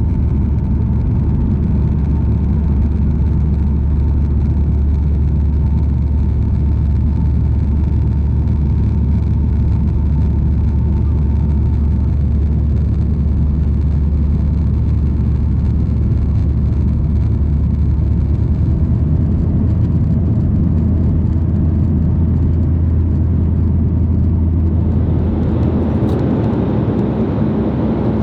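Boeing 737-800 cabin noise: the steady low rumble of its CFM56 jet engines and airflow. A faint whine fades away partway through, and a broader rushing noise swells near the end.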